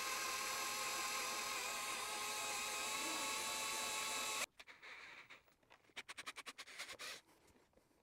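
Bosch cordless drill boring slowly through plastic motorcycle fairing, a steady whine that cuts off suddenly about halfway through. A few faint short ticks follow.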